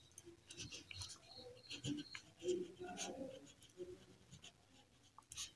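Ballpoint pen writing on paper: faint, irregular scratching strokes as a word is written out by hand.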